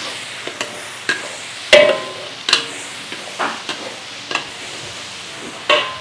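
Metal ladle scraping and clanking against a large metal wok as it stirs ground chili sambal paste, with a steady sizzle of the paste frying underneath. The clanks come irregularly, about once or twice a second, loudest a little under two seconds in.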